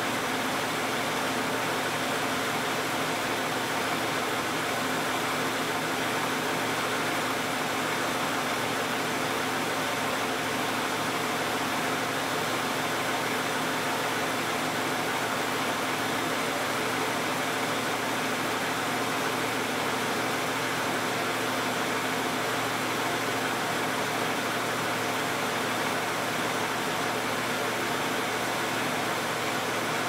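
A 2010 Toyota Camry's 2GR-FE 3.5-litre V6, with 161,500 miles on it, idling steadily as it warms up after a cold start, under an even hiss.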